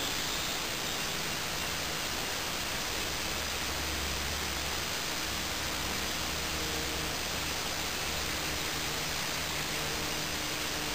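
Steady, even hiss with no distinct sounds.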